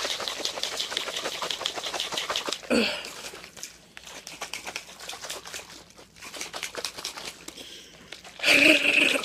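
Drink being shaken hard in a plastic shaker cup: liquid sloshing and rattling against the sides in rapid strokes, with a brief louder sound about three seconds in and another near the end.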